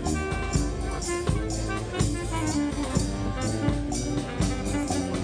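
Live marching band playing a tune: horns hold sustained notes over drums and percussion keeping a steady beat.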